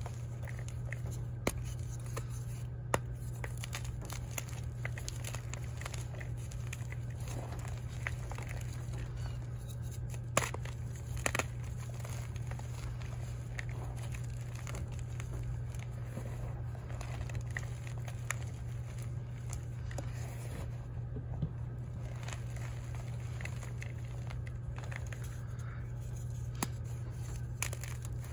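Blocks of dyed gym chalk being crushed and crumbled by hand in a bowl: soft gritty crunching and crumbling, with scattered sharp snaps as pieces break off. A steady low hum runs underneath.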